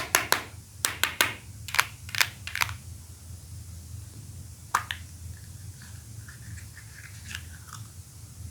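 Plastic toy Poké Balls clicking and snapping: a quick run of about nine sharp clicks in the first three seconds, two more a little before halfway, then faint light ticking and scraping.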